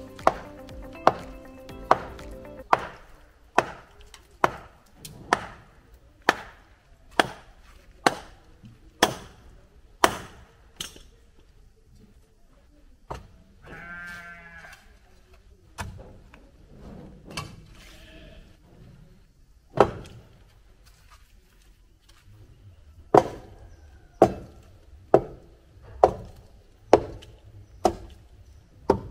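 Hammer blows striking timber formwork, about one a second, as shuttering is knocked loose from set concrete during un-shuttering; the strikes pause midway, with only a few scattered knocks, then resume near the end. A single bleat about fourteen seconds in.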